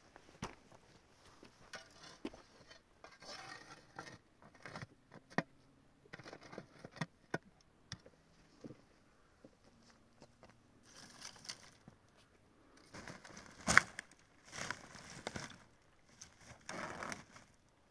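Intermittent scrapes, rustles and small knocks of hands working with objects, with one sharp, louder knock about 14 seconds in.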